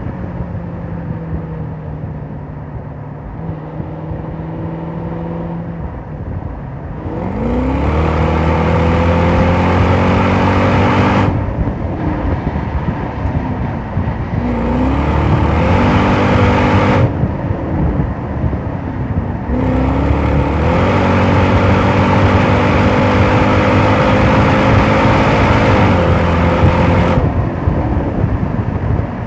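Jaguar XF R-S supercharged 5.0-litre V8 heard from inside the cabin: cruising lightly, then three hard accelerations with the engine note climbing, the longest near the end, each ending abruptly when the throttle is lifted.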